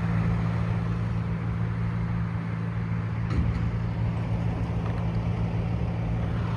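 An engine idling steadily, a low hum of several constant tones, with a faint click about three seconds in.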